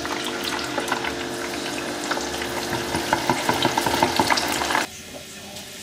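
Raw potato slices going into hot oil in an electric deep fryer: the oil sizzles and bubbles with crackles that grow denser and louder, then drops suddenly to a quieter sizzle near the end.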